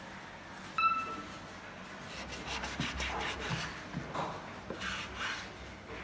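Knife cutting and scraping pork on a wooden cutting board: irregular rasping strokes with a few dull knocks from about two seconds in. A brief high ringing tone about a second in is the loudest sound.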